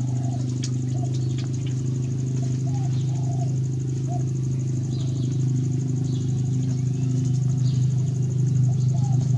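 Short, squeaky animal calls, scattered one or two at a time, over a steady low hum.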